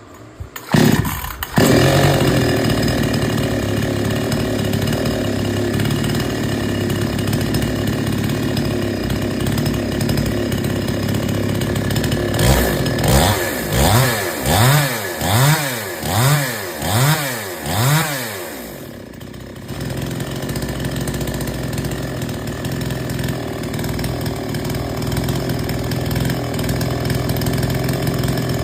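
Two-stroke petrol chainsaw engine catching within the first two seconds, then running steadily. From about halfway in, its throttle is blipped seven times in a row, the pitch rising and falling each time, before it settles back to a steady run. This follows a carburetor tuning of the H and L mixture screws.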